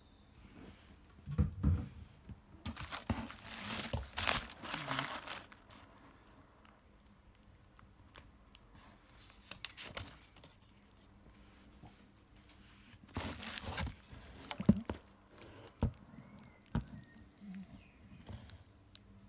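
Plastic bubble wrap rustling, crinkling and tearing as it is pulled aside inside a cardboard box, in two spells of a few seconds each, with a few dull knocks as a plastic bottle is handled.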